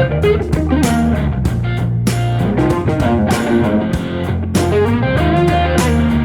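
Rock-style music with electric guitar and bass over a steady drum beat.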